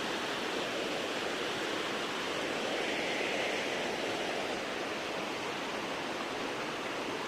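Steady rushing noise with no engine beat heard, a little brighter near the middle.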